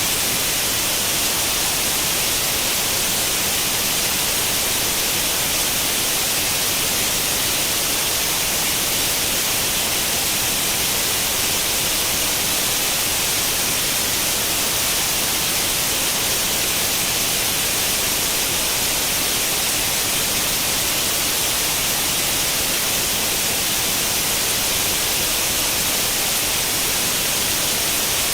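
Steady white noise like the static hiss of an old tube television tuned to no channel, even and unchanging, strongest in the high range.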